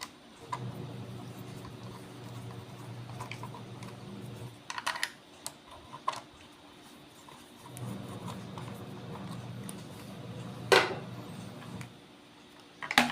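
Small electric screwdriver running twice, about four seconds each time, driving the case screws of a Fluke 8024A multimeter; a few sharp clicks fall between the runs.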